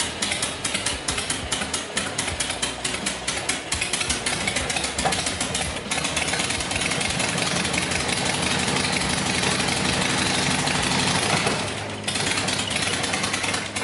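1995 Harley-Davidson Sportster 883's Evolution V-twin idling with the uneven, loping beat typical of the Evo engine. About six seconds in it is revved and held up on the throttle for several seconds, then drops back to idle near the end.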